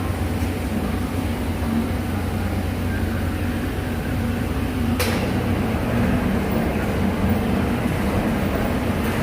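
Steady electrical hum and hiss of TIG welding on stainless steel, with a single sharp click about five seconds in.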